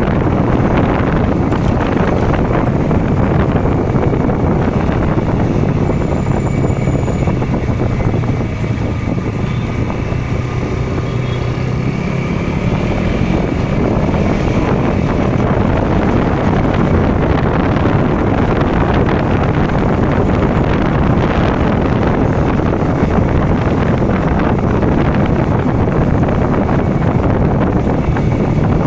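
KTM Duke motorcycle engine and exhaust running under way, with wind rushing over the microphone. The engine eases off for a few seconds near the middle, then pulls again.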